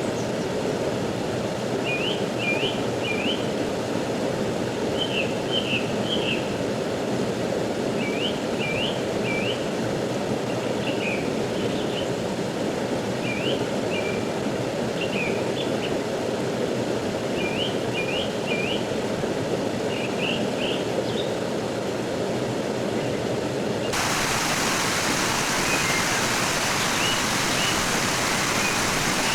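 Rushing stream water, a steady hiss, with a small bird calling short chirp phrases in groups of three or four every few seconds. About 24 seconds in, the water sound turns abruptly brighter and hissier and the chirps grow faint.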